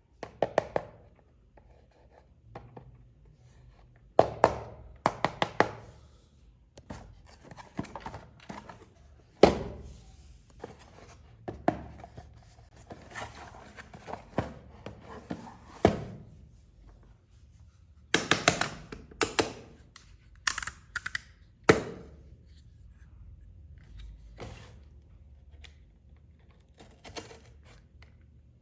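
Toy packaging being handled and opened by hand: irregular taps, knocks and clicks, some in quick clusters, with short stretches of rustling.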